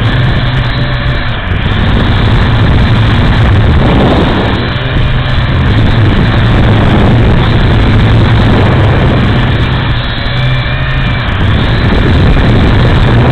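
A small drone's motors and propellers buzzing loudly and steadily, picked up by the drone's own onboard camera microphone, with the pitch wavering up and down as it manoeuvres.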